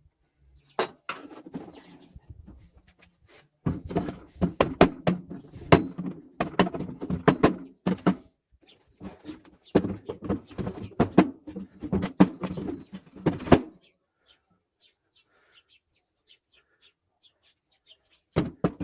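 Irregular run of sharp knocks and clicks, in clusters, from hand work on the truck generator's parts. It stops about 14 seconds in, and one more short burst comes near the end.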